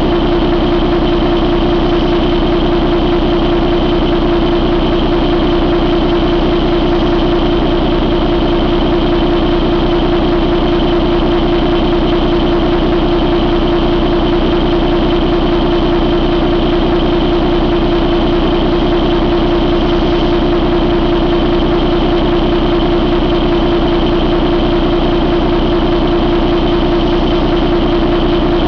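2012 Volvo D13 inline-six turbo-diesel engine idling steadily, with a thin, steady high whine over the engine's hum.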